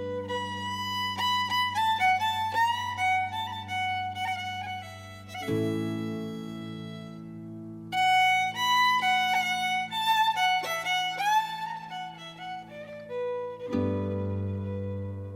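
Fiddle playing a quick Irish traditional tune over sustained accompanying chords that shift twice.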